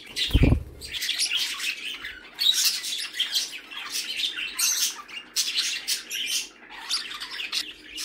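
A flock of pet budgerigars and small parakeets chirping and chattering, a dense run of short high chirps. A low thump about half a second in.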